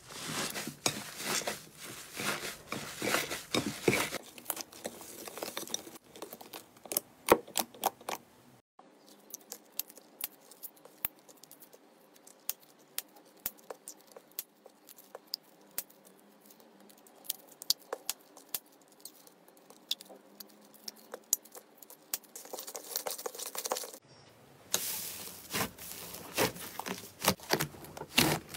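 Hands squeezing and kneading thick slime, a dense run of wet clicks, pops and crackles. For a stretch in the middle it turns much quieter, with scattered single clicks and crinkles as small plastic zip bags filled with slime are handled. Near the end the dense squishing crackle returns.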